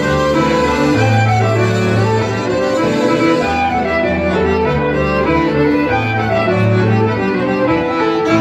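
Live Breton fest-noz dance tune played by a band, a fiddle carrying the melody over held low notes that change about once a second.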